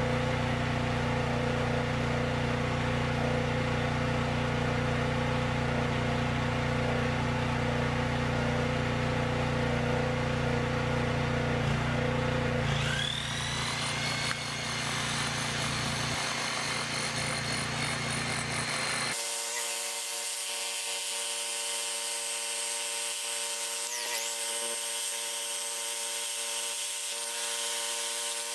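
A steady machine hum, then about halfway through a handheld power tool's motor spins up with a rising whine and runs steadily. The tool is being used to drive the half-inch all-thread anchor rods for the ground-mount frame into the ground.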